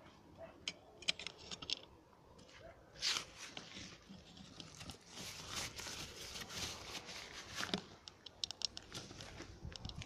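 Scraping and crunching on dry, cracked clay, with scattered sharp crackling clicks. It grows busier in the middle for a few seconds.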